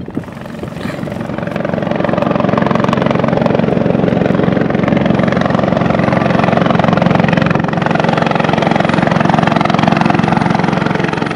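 Air ambulance helicopter flying overhead: its rotors and engine grow loud over the first two seconds, hold steady, and begin to fade near the end.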